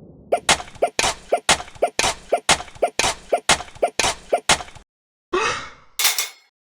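Japanese railroad crossing bell ringing its 'kan-kan' strikes, about two a second, stopping a little under five seconds in. Two short sound effects follow: one rising in pitch, then a brief noisy burst.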